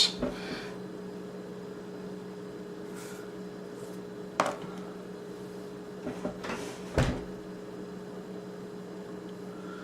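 Steady low electrical hum, with a sharp click about four and a half seconds in, a few faint ticks, and a stronger click at about seven seconds.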